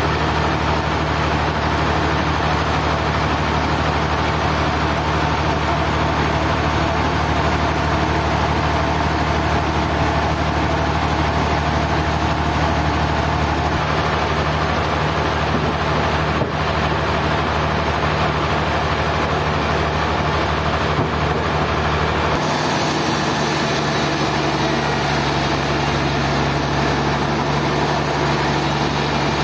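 Sawmill machinery running steadily, a continuous engine-like hum. About 22 seconds in the hum shifts lower and a high hiss grows louder.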